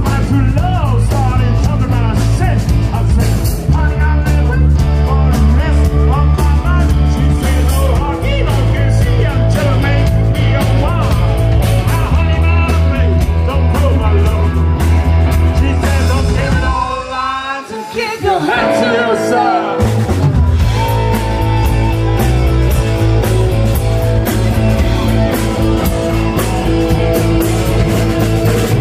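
Live rock and roll band playing, with electric guitar, bass and a singer. A little past halfway the bass drops out briefly under a wavering run that falls in pitch, then the band comes back in.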